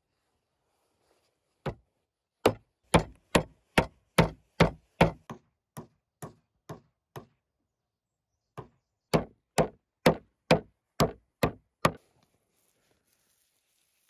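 Wooden mallet pounding raw beef slices on a wooden cutting board, flattening the meat. The blows come steadily at about two a second: a run of about a dozen, a pause of over a second, then eight more.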